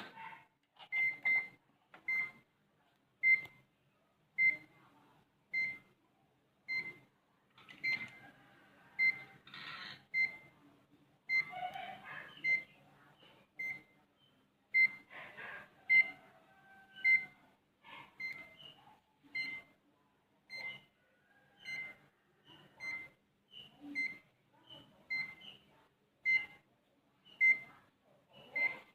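Short high-pitched electronic beep with a soft knock, repeating evenly a little faster than once a second, while a repaired computer power supply is tested.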